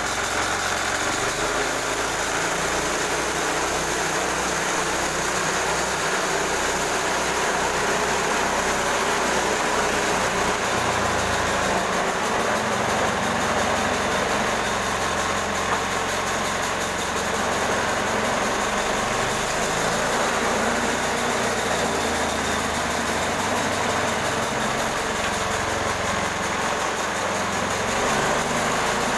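Engine of a portable band sawmill running steadily.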